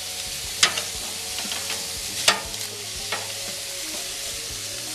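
Steady sizzling of food on a gas grill, with two sharp clacks of metal tongs about half a second in and just past two seconds, and a few softer taps, as ears of corn in their husks are turned on the grate.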